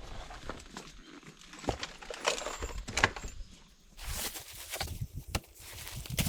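Irregular footsteps crunching and rustling on the forest floor while walking.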